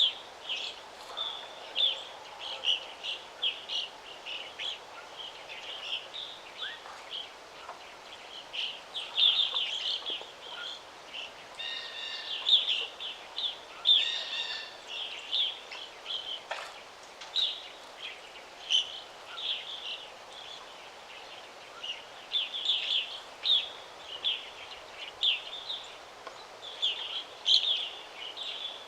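Songbirds chirping in quick short phrases, over and over, over a soft steady background hiss of breeze and ambience; a few fuller, stacked calls stand out near the middle.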